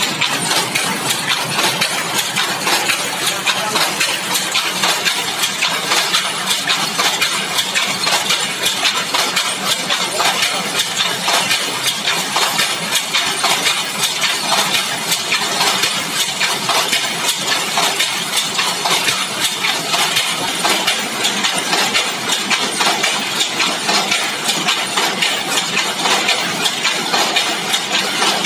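Power loom fitted with a lappet attachment running at speed: a loud, steady, fast rhythmic clatter of metal parts with each pick of the weave.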